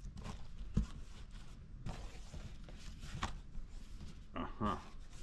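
Large cardboard shipping box being opened: packing tape cut and pulled loose, and the flaps folded back. Scattered rustles, scrapes and knocks of cardboard, the busiest just before the end.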